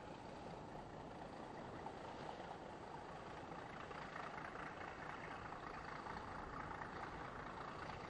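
Rough sea surging and breaking against a stone sea wall, a steady rush of surf and spray that swells a little about halfway through.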